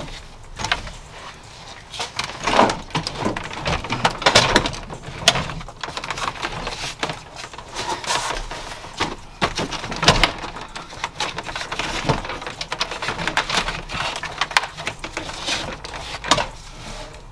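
Irregular clicks, knocks and rustling as hands work through zip-tied wiring and plastic parts behind a car dashboard during its removal.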